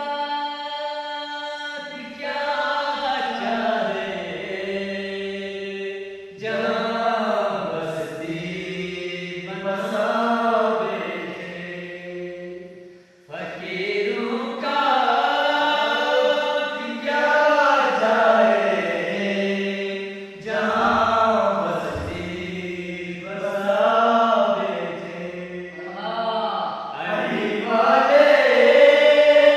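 A small group of men's voices singing a manqabat, an Urdu devotional praise poem for Imam Ali, without instruments. The singing runs in long phrases with short breaks between them and grows loudest near the end.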